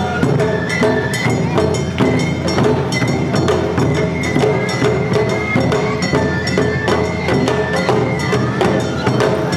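Awa odori hayashi played by a street band: taiko drums and a hand-held kane bell beating a steady rhythm of sharp strikes, with a shinobue bamboo flute playing a high melody over them.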